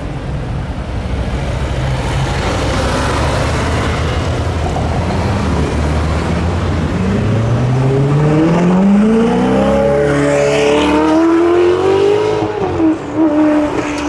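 Ferrari 488 Spider's twin-turbo V8, fitted with a Novitec aftermarket exhaust, accelerating hard: the engine note climbs steadily in pitch for several seconds. Near the end it drops sharply, with a couple of short breaks in the sound.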